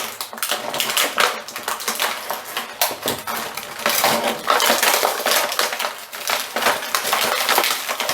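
Plastic action-figure packaging and small hard plastic accessories being handled: a dense run of crinkling, clicks and light clinks.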